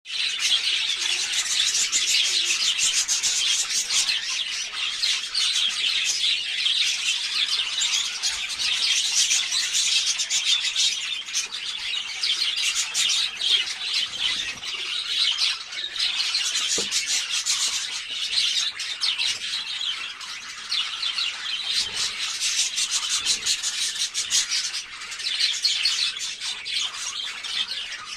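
A flock of small cage birds chirping and chattering continuously, many short high calls overlapping into a dense din.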